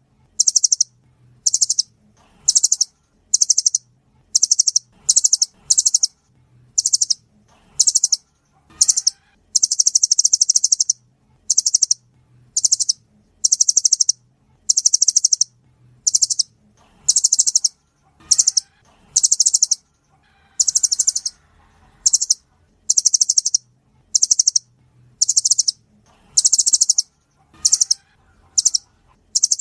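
Nuthatch calling: short, high-pitched rapid trills repeated about once a second, a few of them drawn out longer.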